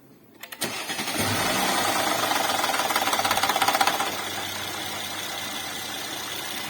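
Mercedes M276 V6 engine cranking and catching, then running with a loud rapid rattle for about three seconds before settling to a steady idle. The rattle at start-up is the sign of a faulty intake camshaft adjuster.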